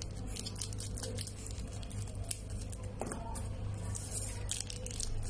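Thin plastic wrapper around a stick of modelling clay crinkling as it is snipped open with small scissors and pulled off: a quick, irregular run of small crackles over a low steady hum.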